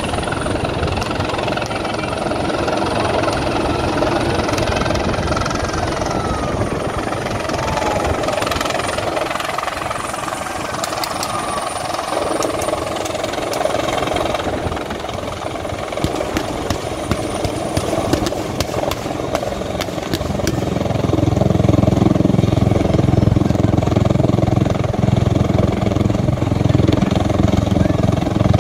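A helicopter's rotor noise fades as it flies off, then car engines run across loose gravel. From about two-thirds in, a vehicle engine close by grows loudest.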